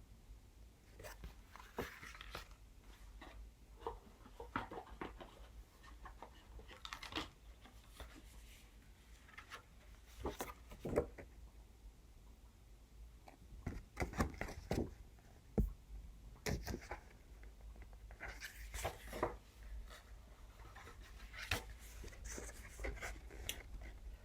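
Paper and card being handled: scattered light rustles and clicks, some crisper than others.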